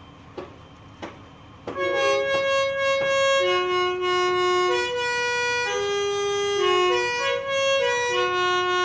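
Music: a melody of held, reedy notes that change pitch in steps begins about two seconds in, after two soft clicks.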